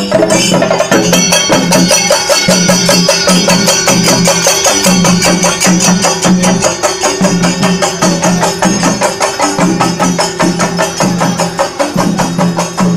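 Kerala chenda melam: a group of cylindrical chenda drums beaten with sticks in a rapid, steady, loud rhythm.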